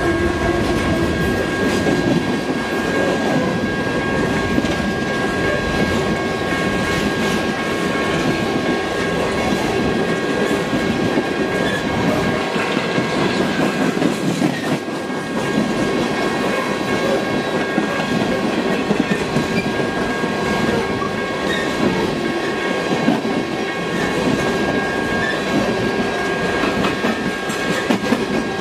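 Freight train rolling past: steady rumble and clickety-clack of wheels over the rails, with a faint high steady whine running underneath.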